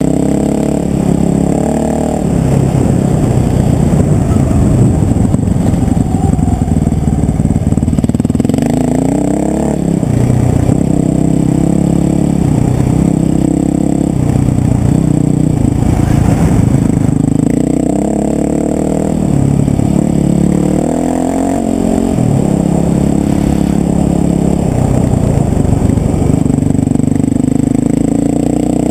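Enduro motorcycle engine heard close up from the bike while riding, its pitch rising and falling again and again as the throttle opens and closes.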